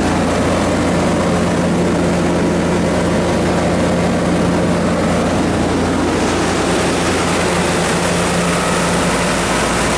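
Cummins 4BT3.9-G4 four-cylinder turbocharged diesel engine of a 60 kW generator set running steadily at its governed 1800 rpm, with the hiss getting a little brighter about six seconds in.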